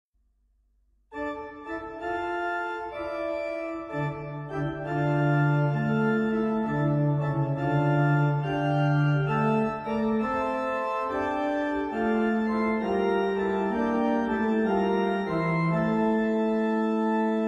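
Organ playing the introduction to a closing hymn: held chords over a slowly moving bass line. It comes in about a second in, after a moment of silence.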